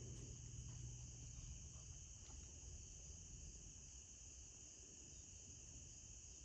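Near silence, with a faint, steady, high-pitched chorus of insects.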